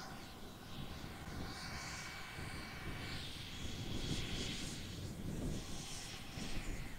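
Electric ducted fan of a Freewing Avanti EDF sport jet whining, throttled back as the jet comes in to land, with wind rumbling on the microphone.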